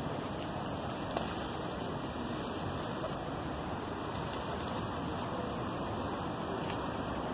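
Steady rushing background noise with a single brief click about a second in.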